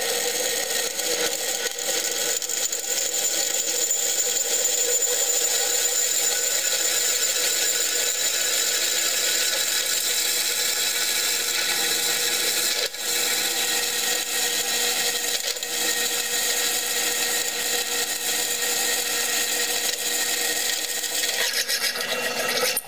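Craftsman drill press running steadily under load as its twist bit cuts through steel plate, the motor's hum mixed with the hiss of the bit shearing off curled chips. The sound dips briefly about halfway through.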